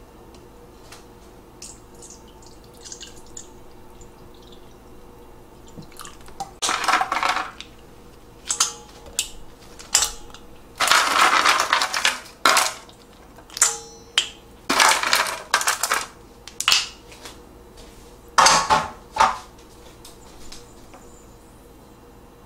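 Water poured in several splashing pours from a plastic bottle into a stainless steel bowl of seaweed noodles, with ice cubes dropping in and knocking against the steel between the pours.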